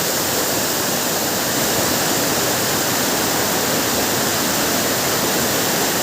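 Water rushing out of a cave in a steady, unbroken stream.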